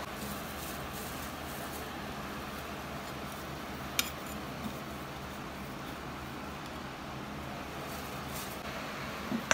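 Steady fan-like room noise with a faint low hum, broken by a single sharp clink about four seconds in, a smaller click just after it, and another click near the end.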